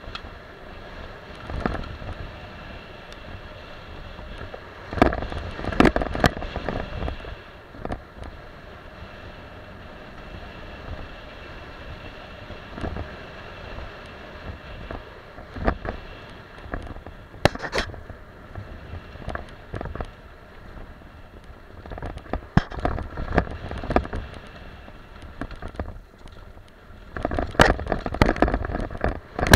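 Mountain bike descending a dirt trail: steady rumble of the tyres on dirt with wind on the microphone, and the bike clattering over bumps with several loud knocks, bunched in a few rough stretches.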